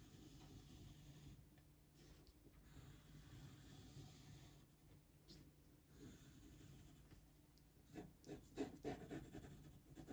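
Pencil scratching faintly on card in short, uneven strokes as a letter is drawn, with a few slightly louder scrapes near the end.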